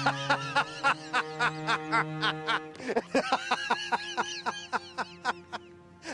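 A man's mocking laughter: rapid, repeated short 'ha' syllables in two runs, a brief break a little before halfway, over a film score of low sustained string tones.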